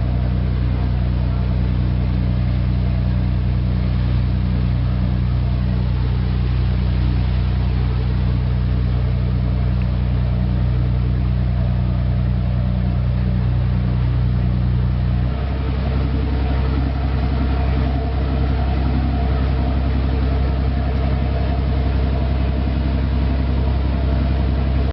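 Engine of a small passenger ferry boat running steadily underway, a loud constant drone. About fifteen seconds in, the engine note changes abruptly and then holds steady again.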